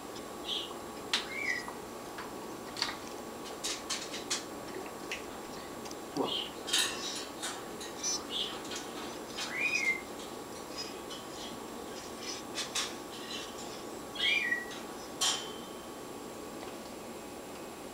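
Small birds at a feeder giving short chirps and calls, one short rising-then-falling call repeated a few times, amid scattered sharp clicks and taps.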